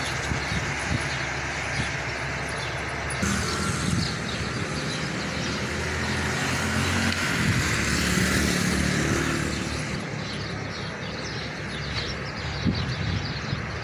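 Street traffic, with a motor vehicle's engine passing close and loudest about seven to nine seconds in.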